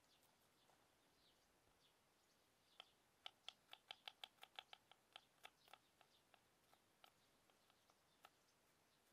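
Kitchen knife chopping garlic cloves on a wooden log chopping board: a quick run of light taps, about five a second, starting about three seconds in, then slowing and thinning out toward the end.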